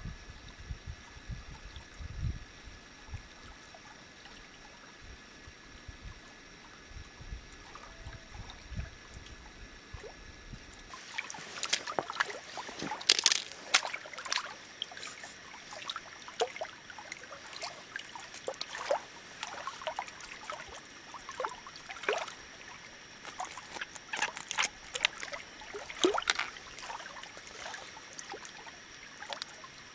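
Wind rumbling on the microphone for about the first ten seconds, then lake water lapping against shoreline rocks, with frequent sharp splashes as hands work in the shallow water.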